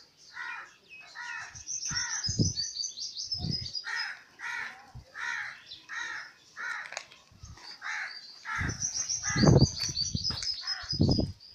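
Crows cawing over and over, about two harsh caws a second, with quick high twittering from small birds twice. A few low rumbling bumps come in between, the loudest about three quarters of the way through.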